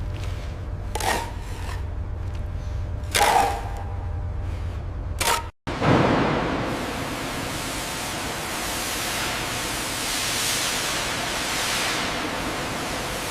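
A steady low hum with three short hissing surges. After a sudden cut about five and a half seconds in, a loud, even hiss runs on without a break, like spraying or venting steam.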